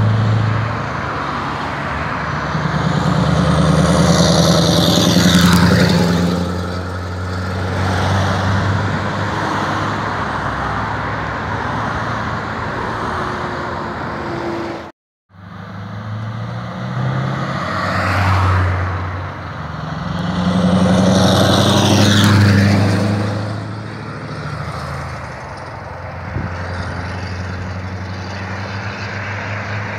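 Straight-piped Scania R620 truck's 16-litre V8 driving past, a deep exhaust drone that swells as it passes and then fades, with cars' tyres swishing by. The sound cuts out abruptly about halfway, and a second pass with the same swell and fade follows.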